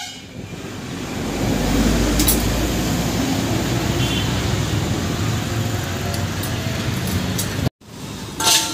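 Highway traffic, with a heavy vehicle's low rumble swelling about a second in and then holding steady. The sound cuts off abruptly near the end and is followed by a short sharp sound.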